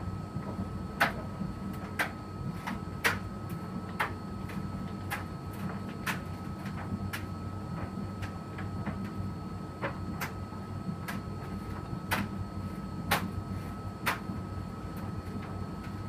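Electrolux front-loading washing machine running a cotton wash: a steady motor hum with a thin constant whine, and a sharp tick about once a second as the drum turns.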